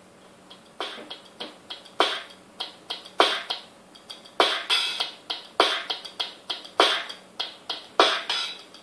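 Music with a steady drum beat, played through a TV speaker and picked up by a camera's microphone; the beat comes in about a second in, after a brief lull.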